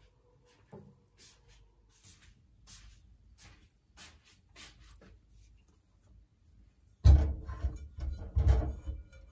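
A red kuri squash and a sweet potato being set and pushed into a rice cooker's non-stick inner pot, making a cluster of loud handling knocks and thuds about seven seconds in. Before that there are only faint, scattered soft ticks.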